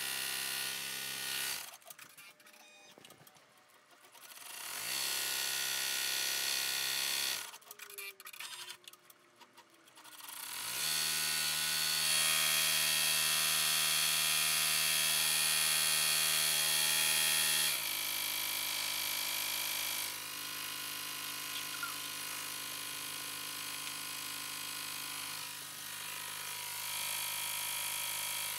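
Baby Lock Enterprise ten-needle embroidery machine sewing the satin-stitch border, its motor running at a steady speed. It stops twice, at about two and about seven seconds in, with a few clicks during the pauses, and spins back up each time. It runs loudest for several seconds, then carries on a little quieter from about eighteen seconds in.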